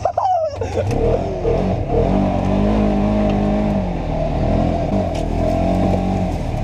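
Side-by-side UTV engine running hard under throttle, its pitch rising as it speeds up, holding, then dropping off as it slows.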